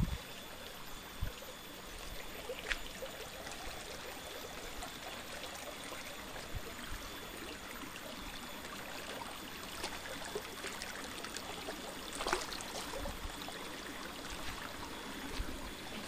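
Shallow rocky stream running and trickling over stones, a steady rushing of water. A few light knocks sound over it, the loudest a little past twelve seconds in.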